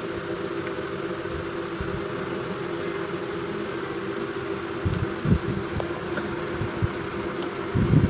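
A steady mechanical hum, with a few low knocks about five seconds in and again near the end.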